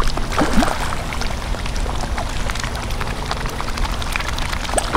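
Steady rush of pouring, splashing water with many small drips and pops scattered through it.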